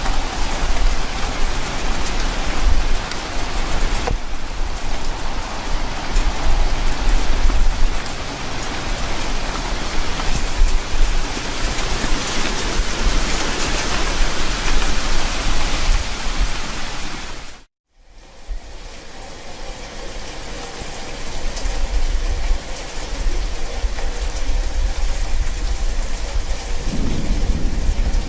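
Steady rain with a low rumble of thunder beneath it. About two-thirds of the way through, the sound drops out for a moment and comes back with less hiss at the top.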